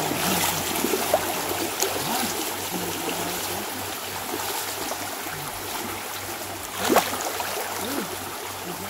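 Rain-swollen creek rushing and churning with a strong current, with splashing from a person wading chest-deep through it. A sharp sound about seven seconds in is the loudest moment.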